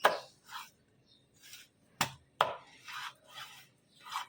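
A knife chopping a freshly bought aar catfish into small pieces: four sharp chops, the first at the very start, two close together about two seconds in and one near the end, with softer scraping between them.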